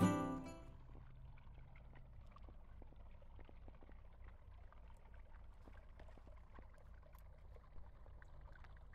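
Jingling Christmas background music fades out in the first second. Then comes faint outdoor ambience: a low rumble with light, scattered ticks and rustles.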